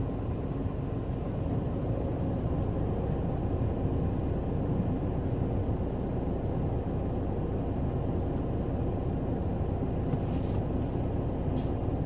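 Excavator's diesel engine running with a steady low drone, with a couple of faint clicks near the end.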